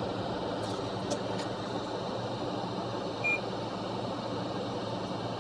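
Steady fan-like hum and hiss from running equipment, with a short high-pitched beep about three seconds in.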